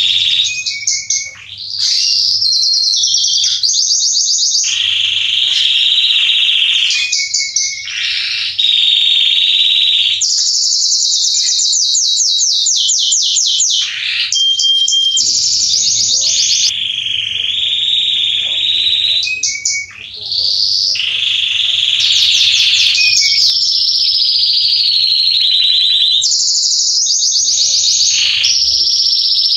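Male domestic canary singing a long, continuous song of fast rolling trills and held high notes, with only brief breaks.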